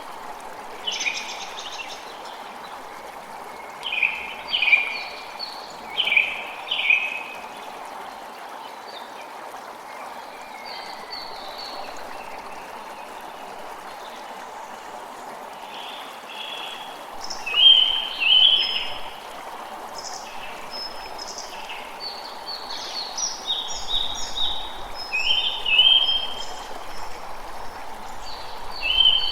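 Forest ambience: a stream running steadily under songbirds calling in bursts of short chirps, busiest in the second half.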